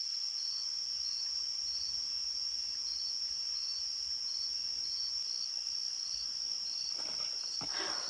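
Insects calling: a steady high-pitched trill, with a second insect chirping regularly a little under twice a second. A brief rustle comes near the end.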